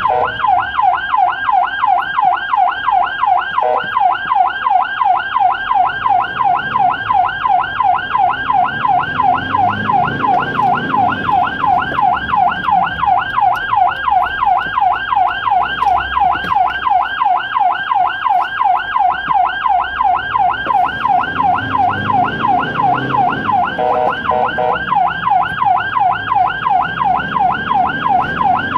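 Ambulance siren in a fast yelp, a rising sweep repeating about three times a second without a break, with the vehicle's road and engine noise underneath.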